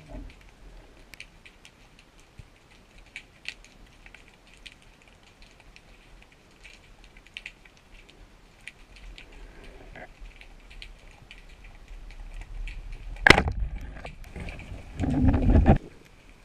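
Underwater sound picked up through a GoPro's housing: faint scattered clicks and crackles over a low rumble. About 13 seconds in comes one sharp, loud crack, and near the end a short, loud, low rushing burst.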